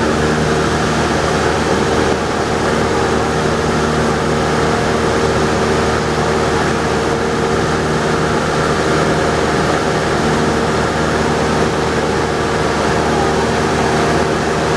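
Cessna Skyhawk's piston engine and propeller droning steadily in flight, heard from inside the cabin.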